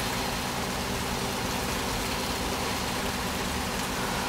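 Fishing boat's engine running steadily: a constant low drone with an even hiss over it.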